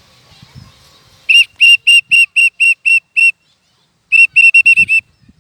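A whistle blown in short, loud, same-pitched toots: eight evenly spaced, a pause, then a quicker run of about six.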